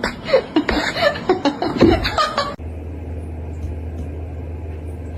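A person laughing in quick, choppy peals. About two and a half seconds in it cuts off abruptly to a steady low hum.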